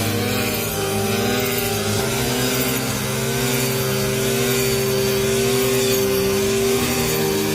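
Engine of a rice harvesting machine running steadily with a constant drone, its note shifting about two seconds in.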